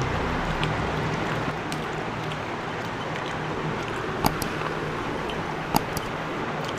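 Steady, even background noise with a low hum, broken by two sharp clicks, about four and six seconds in.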